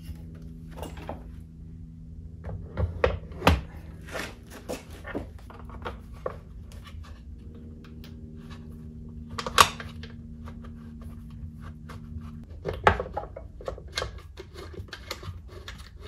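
Handling clatter of a Park Tool TS-4.2 truing stand being fitted to its plastic base: scattered clicks and knocks of metal and plastic parts, with one sharp knock a little past halfway. A steady low hum runs underneath and stops about three quarters of the way through.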